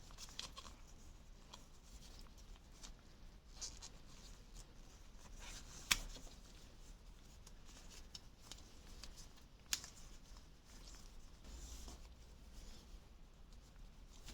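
Faint handling noises of small parts being worked by hand: light rustling and scraping, with two sharp clicks about six seconds and ten seconds in.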